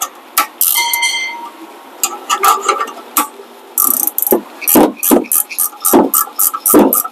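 Hand tools working the bolts of a car's rear disc brake caliper: a short metallic whir about a second in, then from about four seconds in a quick run of sharp clicks and knocks, about four to five a second, as the caliper bolts are tightened.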